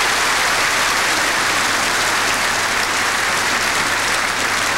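A large audience applauding: a steady, sustained round of clapping from many hands in a big hall.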